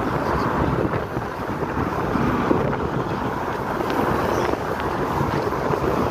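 Wind buffeting a phone microphone: a steady, loud rumbling roar.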